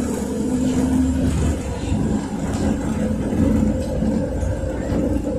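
A NefAZ 5299 city bus under way, heard from inside the passenger cabin: its Mercedes-Benz M906 LAG natural-gas engine running with a steady low hum over a rumble of road and tyre noise.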